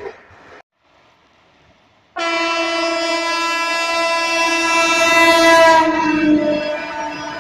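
Indian Railways locomotive horn sounding one long, loud, steady blast. It starts after a brief near-silent gap and fades out near the end.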